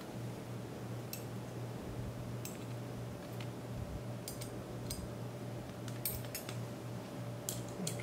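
Light metallic clicks and clinks of a Koolance CPU water block's metal mounting bracket and its posts being fitted together by hand, coming irregularly over a faint steady hum.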